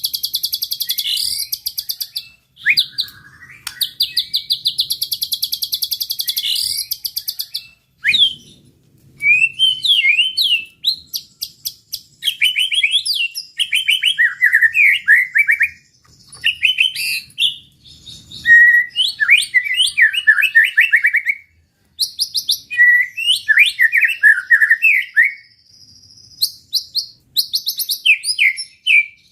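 White-rumped shama (murai batu) in full song. It gives two long, very fast rattling trills in the first seven seconds, then a string of short, varied whistled phrases with quick rising and falling notes.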